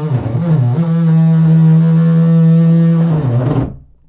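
DeWalt 20V cordless cut-out tool running as its bit cuts the shower surround around the valve hole: a steady motor whine that dips in pitch briefly as the bit bites. It stops suddenly near the end.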